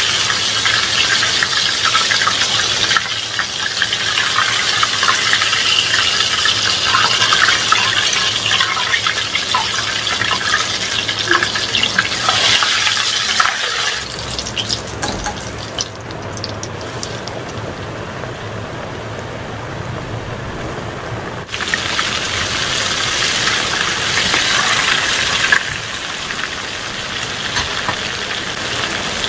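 Battered chicken deep-frying in hot oil, a dense steady sizzle. It turns quieter for several seconds midway, when only crumbs are left in the oil, and comes back loud and abruptly as a fresh piece fries.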